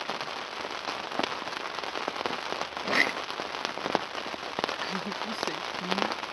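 Rain pattering steadily on a tent's fabric, a dense patter of small taps, with a spoon stirring in a metal mug and one louder clink about three seconds in.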